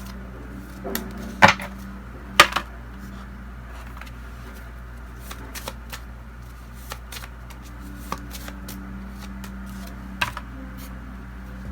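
Oracle cards being shuffled and handled: two sharp snaps about a second and a half and two and a half seconds in, then a run of soft scattered card ticks and flicks.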